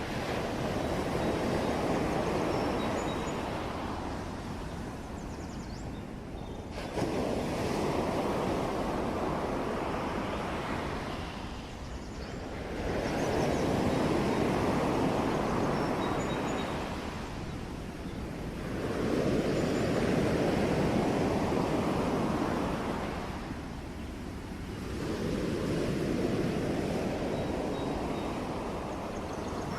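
Ocean surf: waves washing in and drawing back in slow, even swells, five surges about six seconds apart.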